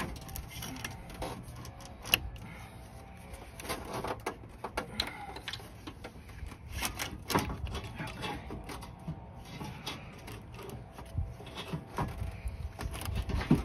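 Irregular clicks, light knocks and scrapes as an aluminum radiator is worked down into a car's engine bay past the hoses and plastic mounts, over a low background rumble.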